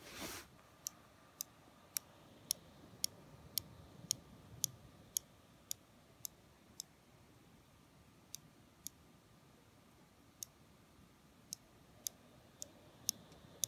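Sharp, light clicking from inside a 2016 Razer Blade 14-inch laptop, about two clicks a second, pausing for a moment around the middle before starting again. It is the intermittent fault the owner is chasing. It shows up when the laptop is tilted and the fans speed up, and he places it near the middle of the machine rather than at the fans.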